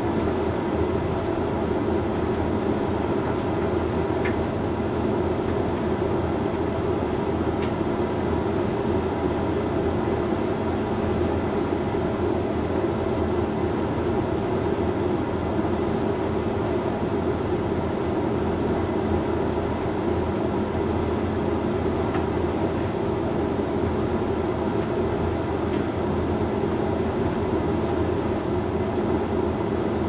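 Hoover Link X Care HLX C10DRGR condenser tumble dryer running mid-way through a Rapid 45 drying cycle: drum turning and fan running with a steady rumble and hum.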